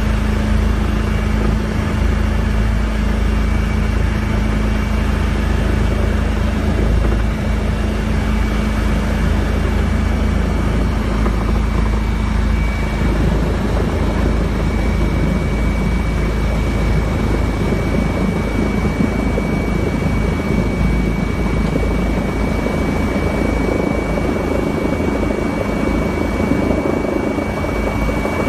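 Eurocopter EC135 twin-turbine helicopter heard from inside the cabin during landing: steady rotor and engine noise with a constant high whine. About halfway through, the low hum gives way to a rougher low rumble as the helicopter comes down low over the apron.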